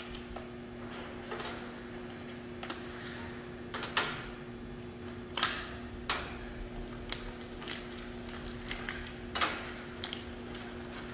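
Gloved hands unwrapping and handling new connecting rod bearing shells on a workbench: irregular light clicks and paper rustles, about a dozen, over a steady low hum.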